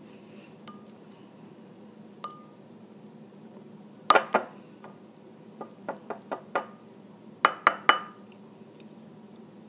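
Sharp clinks and clicks of hard shell and utensils knocking against a dish while crab is picked apart. There is a cluster of knocks about four seconds in, a run of lighter ticks a second or so later, then three ringing clinks within half a second near the end.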